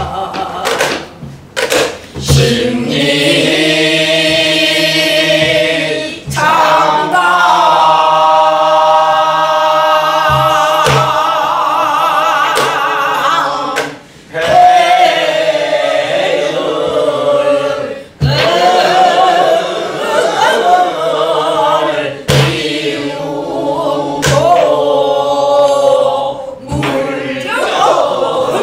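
A group of voices singing a Namdo (southern Korean) folk song in unison, with held notes shaken by heavy vibrato and bending pitches. A few sharp strokes on a buk barrel drum are heard now and then.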